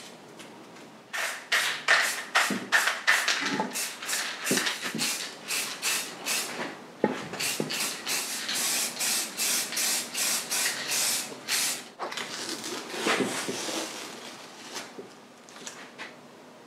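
Aerosol spray can spraying black paint onto a motorcycle silencer in a rapid series of short hissing bursts, about two to three a second. The bursts grow weaker after about twelve seconds and die away near the end.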